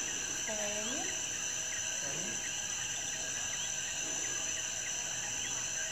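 Night-time insect chorus: a steady high-pitched buzz with short chirps repeating throughout.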